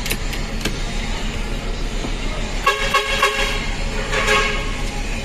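Vehicle horn honking twice: a longer honk about two and a half seconds in and a shorter one about a second later. Underneath runs the steady hum of the bus engine idling, with a couple of light clicks at the start.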